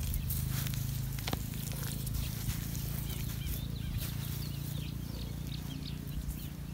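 Hands pressing and scraping dry soil around a tree seedling in its planting hole: soft scratching and crumbling over a steady low rumble, with faint high chirps between about three and six seconds in.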